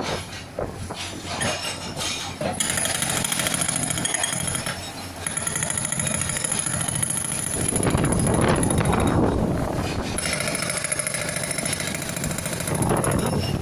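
Hydraulic rock breaker on a Bull HD76 backhoe loader hammering in rapid, even strokes, with short pauses, over the loader's engine running.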